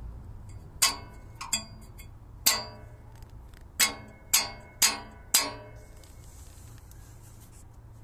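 Thin metal exhaust heat shield on a third-generation Toyota Prius struck by hand seven times, each a sharp ringing clang. The shield is being checked as the source of the buzzing noise. A steady low hum runs underneath.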